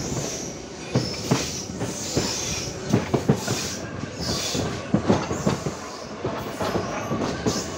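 An 81-71 metro train running on surface track, its wheels knocking irregularly over rail joints and points over a steady running noise.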